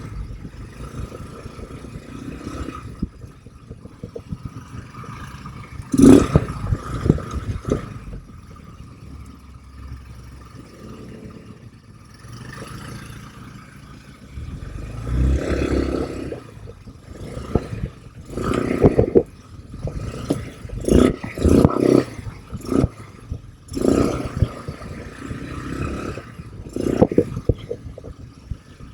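ATV engine running as it is ridden, with irregular loud rumbling bursts and clatter several times.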